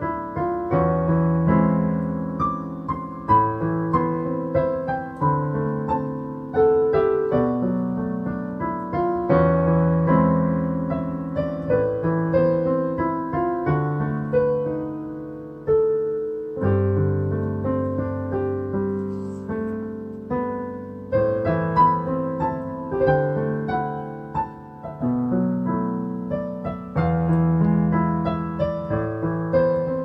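New-age solo piano music: a melody over held low chords, each note struck and left to ring.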